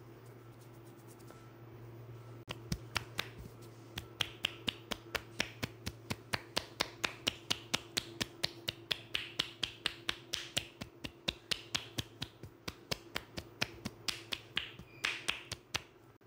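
Massage percussion: hands striking the head and shoulders with joined palms, making sharp popping claps about four times a second. The claps start a couple of seconds in.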